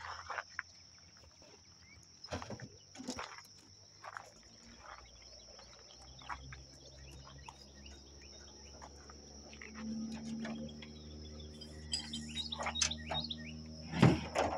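Steady high-pitched drone of insects with scattered bird chirps and a few sharp knocks. From about six seconds in, a low engine hum rises beneath them, and there is a loud knock near the end.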